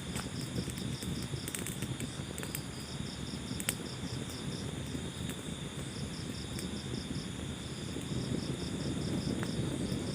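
Wood fire burning with a low, steady rumble and a few sharp crackles early on, under a high-pitched chirping that pulses several times a second.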